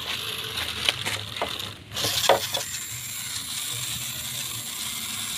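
Toy RC off-road car's small electric motor whirring, with a rattle of sharp clicks from the car about one and two seconds in.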